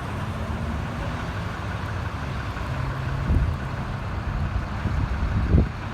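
Vehicle engines running steadily in street traffic, with wind rumbling on the microphone and a couple of gusts near the end.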